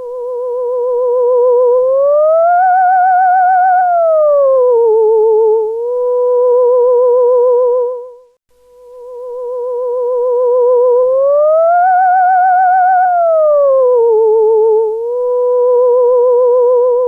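Theremin sound effect: a single wavering tone with vibrato swells in, glides up, holds, slides down below its starting pitch and settles back before fading out. The same phrase plays twice.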